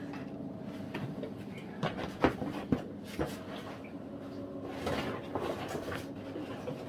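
A few sharp knocks and scrapes of people clambering over cave rock, clustered about two to three seconds in with the loudest near the middle of that run, followed by scratchy scraping around five seconds in.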